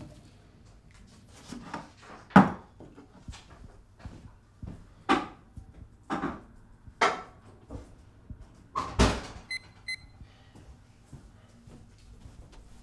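Kitchen clatter from someone making a meal: a string of sharp knocks and bangs, a second or two apart, like cupboard doors and dishes being handled. The loudest come about two seconds in and about nine seconds in, and a couple of short electronic beeps follow the second one.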